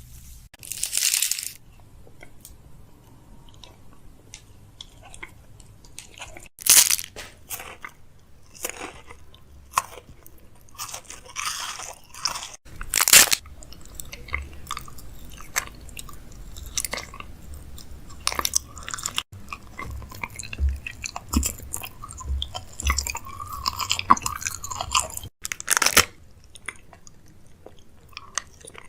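Someone eating crispy fries close to the microphone: irregular crunching bites and chewing, with a few louder crunches about 7, 13 and 26 seconds in.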